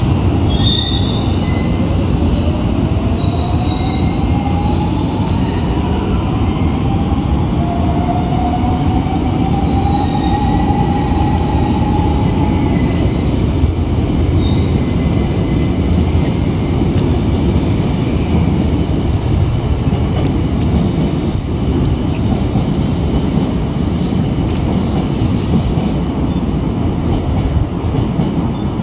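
Electric commuter train moving through the station with its wheels squealing on the rails over a steady rumble; a whine rises slowly in pitch over the first ten seconds or so.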